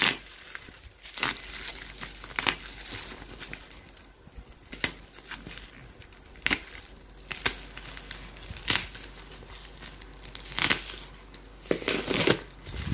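Bubble wrap crinkling and crackling in irregular bursts, with some tearing, as hands pick at the tape and pull the plastic wrapping open.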